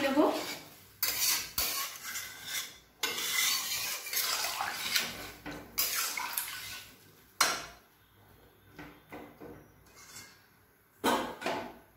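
Flat metal spatula stirring and scraping through watery curry in a metal kadai, with clinks of metal on metal. The scraping comes in irregular strokes, then gives way to a few lighter knocks, with one more scrape near the end.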